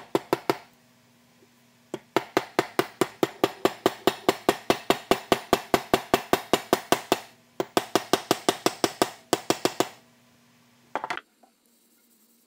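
Rapid light taps of a wooden stick on a steel cross-peen hammer head, about eight a second, in two long runs with a brief break between them. A few taps come at the very start and a short flurry just before the end.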